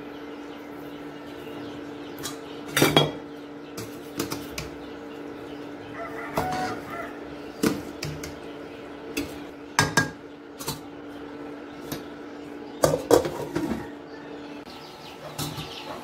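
Metal spatula scraping and clinking against a stainless-steel kadhai while stirring frying onions and potatoes, in irregular strikes a second or two apart, over a steady hum.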